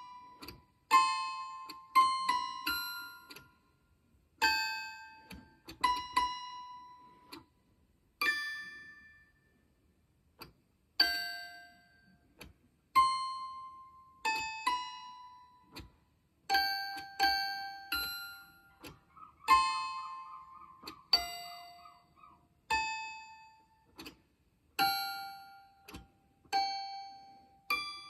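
A tiny piano played one note at a time in an uneven, halting rhythm. Each note is a bright, bell-like strike that fades quickly. The notes are a letter's words transcribed into pitches and played as sound poetry.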